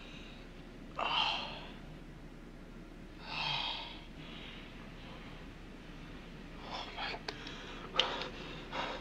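A man gasping and breathing hard: two harsh breaths about two seconds apart, then a run of shorter snorting breaths and sharp clicks near the end. This is the laboured breathing of a man in painful narcotic withdrawal.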